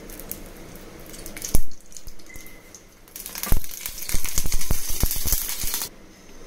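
Cooking oil poured from a small steel bowl into a heated steel frying pan, trickling, then a sharp knock about a second and a half in. A loud, crackling hiss follows for about three seconds and stops suddenly.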